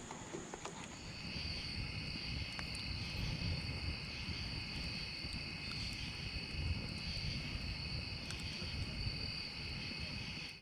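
Chorus of night insects calling steadily: a single high tone gives way about a second in to a denser, pulsing high-pitched chorus, over a low rumble.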